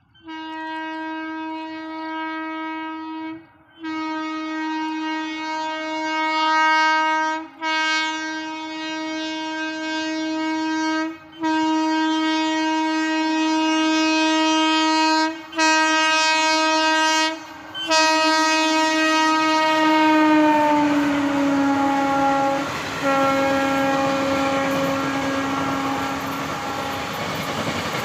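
Train horn sounding in about six long blasts with brief breaks. Its pitch drops about twenty seconds in as the train passes. The rumble and clickety-clack of the passenger coaches on the rails grow under it toward the end.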